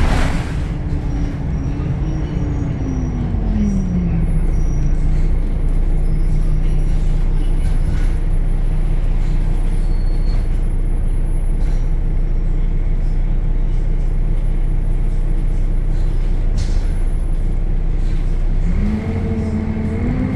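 The DAF Euro 5 diesel engine of a Temsa Avenue LF city bus, heard from on board, with a brief hiss at the very start. The engine note falls away over the first few seconds, then runs steady and even, and rises again near the end as the bus pulls away.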